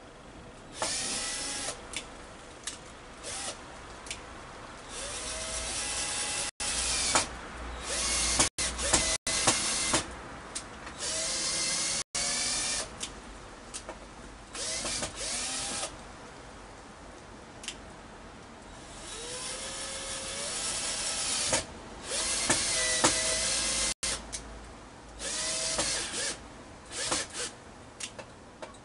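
A power drill run in many short bursts, a second or two each with a few longer runs, its motor pitch rising and falling as the trigger is squeezed and let go.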